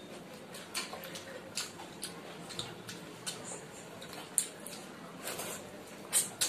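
Eating sounds of people eating with their hands: irregular short wet smacks and clicks of chewing and lips, with fingers working fried rice on a plate, a few of the smacks louder.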